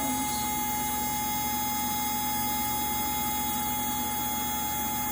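Fast IRC-1 fire alarm control panel's built-in buzzer sounding one continuous, steady buzzing tone.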